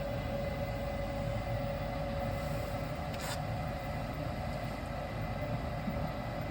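Lennox SLP98V gas furnace's exhaust fan (combustion air inducer) running with a steady hum and a constant whine, after a call for heat. A single short click sounds about three seconds in.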